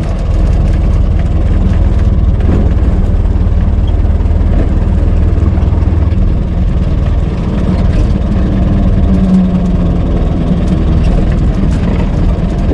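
Old car's engine running steadily at a low, rumbling idle; the sound cuts off abruptly at the end.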